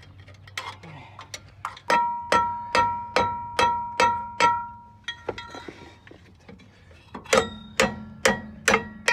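Hammer blows on a rusted brake drum that is seized on its hub, in quick runs of about two to three strikes a second, each hit ringing with a bell-like metallic tone. Lighter taps come between the two runs.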